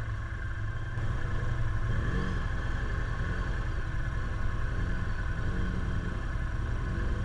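Side-by-side off-road vehicle engines running with a steady low rumble while one machine is driven through deep mud.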